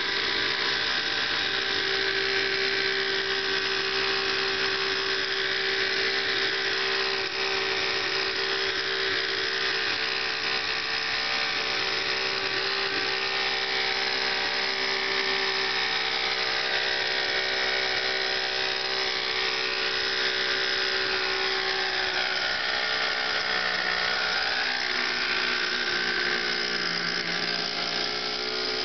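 Thunder Tiger Raptor 50 nitro RC helicopter hovering: its two-stroke glow engine and spinning rotors make a steady, high-pitched whine, the pitch wavering a little in the last several seconds.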